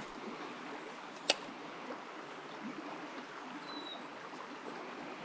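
Small creek flowing steadily, an even rush of water over the stream bed, with one sharp click about a second in.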